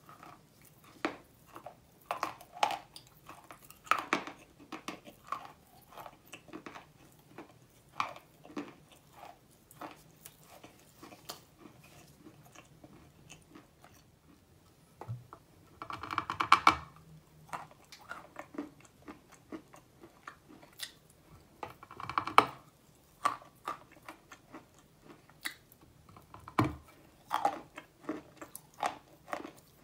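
A person biting and chewing a lump of chalk: many small sharp crunches as it is ground between the teeth, with two louder, longer crunching bursts about halfway through and again some six seconds later.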